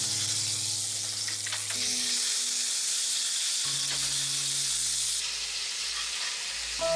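A pork cutlet frying in oil in a cast iron skillet, with a steady sizzle that fades somewhat about five seconds in. Soft background music with held notes plays under it.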